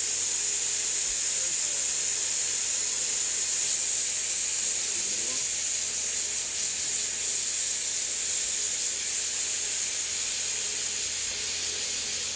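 Glassworking torch hissing steadily and loudly, a high-pitched even hiss, as its flame heats the glass of a picture tube (CRT).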